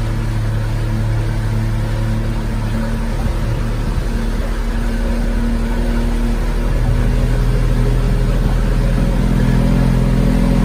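Motorboat engine running steadily while the boat cruises, a low drone under a rush of wind and water noise. It gets a little louder about seven seconds in.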